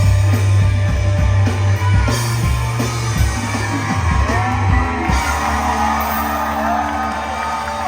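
A rock band playing live: a heavy bass line under steady drum hits and electric guitar.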